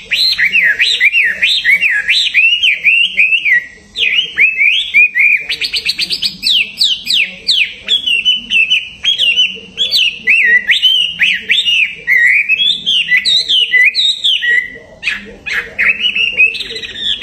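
Caged songbird singing a loud, continuous song of rapid, varied whistled notes that mostly fall in pitch, with a fast run of quick sweeping notes about six seconds in.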